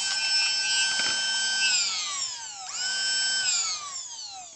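Masterclip Hunter horse clipper motor running with its cutting head off, a steady electric whine, on a test after its switch repair. About 1.7 s in it winds down, spins back up a second later, then winds down again and fades out near the end, with a few light clicks.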